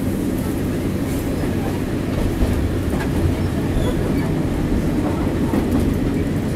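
JNR KiHa 40 diesel railcar running along the line, heard from inside the passenger cabin: a steady deep rumble of the diesel engine and the wheels on the rails.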